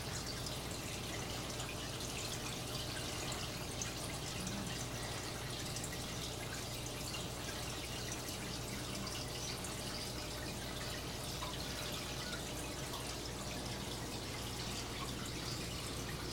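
Aquarium water trickling and dripping, with many small irregular drips, over a steady low hum.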